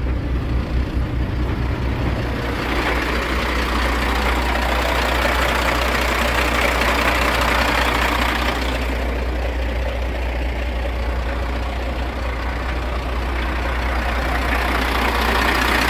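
Kenworth T800 truck's Caterpillar diesel engine idling steadily at operating temperature, a low even rumble. The engine sound turns brighter about two and a half seconds in and gets a little louder near the end.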